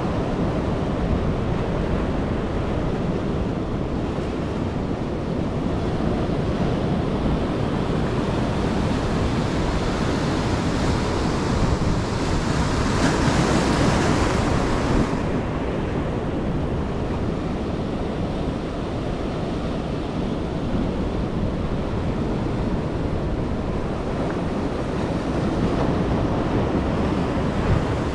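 Ocean surf breaking and washing on a beach, with wind buffeting the microphone. About halfway through comes a louder, hissier wash lasting a few seconds, which stops abruptly.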